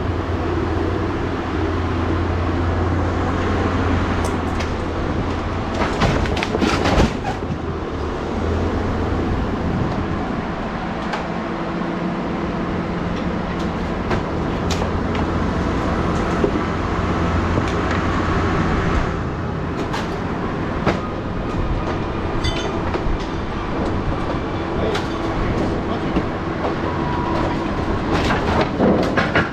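A heavy engine running steadily at a low, even pitch, with irregular metallic clanks and knocks of scrap metal being handled over it.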